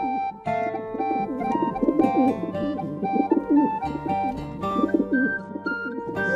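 Domestic pigeons cooing again and again in low, wavering calls, over background music that plays a melody of short notes.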